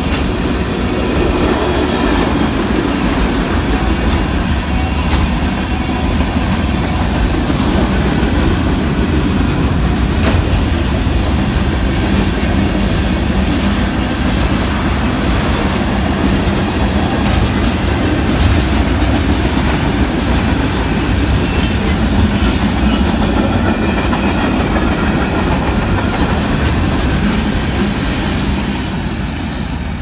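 Freight train cars, tank cars and covered hoppers, rolling past at speed: a steady, loud rumble and clatter of steel wheels on the rails, easing off a little near the end.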